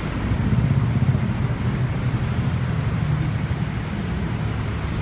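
Road traffic noise: a steady low rumble of vehicle engines and tyres.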